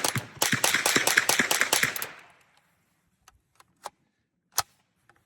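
Integrally suppressed Ruger 10/22 .22 rifle fired in rapid semi-automatic strings, about nine or ten shots a second: a quick run of muffled reports with the action clacking, sounding just like a typewriter. It breaks briefly about half a second in and stops about two seconds in, followed by a few scattered light clicks.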